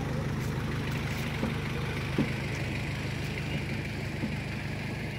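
Small motorcycle engine running steadily while riding, with a constant low hum.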